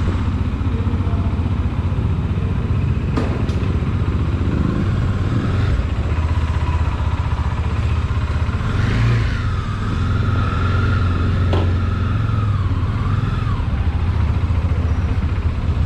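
Bajaj Dominar 400's single-cylinder engine running steadily while the motorcycle is ridden. A wavering higher tone rises and falls for several seconds midway.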